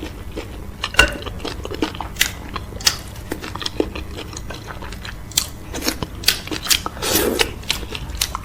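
Close-miked eating sounds of okra soup with cow foot and fufu: wet chewing with many short smacking clicks, and a longer, louder wet sound about seven seconds in.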